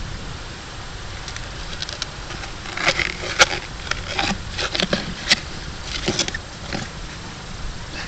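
A spade digging into wet sand and stones for a metal-detector target: a series of sharp scrapes and clinks between about three and six and a half seconds in.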